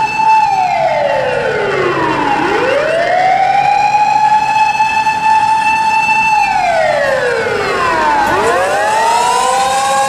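Chinese ambulance siren holding a high, steady note. About half a second in, it drops in pitch over about two seconds, then sweeps quickly back up and holds again. It drops and rises a second time near the end.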